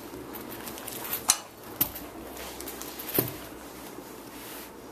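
Replica championship belt handled and turned over on carpet: a low rustle of handling with three sharp knocks, about a second in, just under two seconds in, and a little past three seconds.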